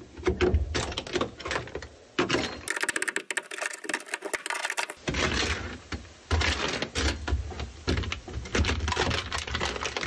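Rapid clicking, knocking and scraping of a hand tool on a car's steel floor pan as dry ice-frozen sound-deadening mat is chipped up. There is a dense run of very fast clicks about three seconds in.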